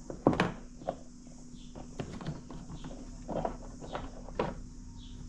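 Irregular knocks and clicks of hands working cable and plastic fittings on a kayak, the loudest knock near the start and lighter ones scattered after it.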